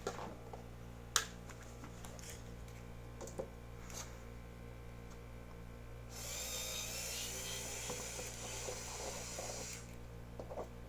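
A few light clicks and taps of handling, then an electric screwdriver whirring steadily for about three and a half seconds, removing screws from a metal power supply case, over a low steady hum.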